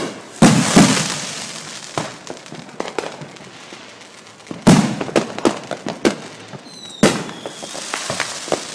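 Fireworks going off: sharp bangs at uneven intervals, some in quick succession, with crackle trailing after the bigger bursts. A brief high whistle sounds near the end.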